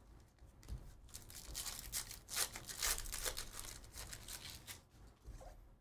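Trading cards sliding and scraping against one another as a freshly opened stack is flipped through by hand: a run of soft, irregular rustles, busiest in the middle.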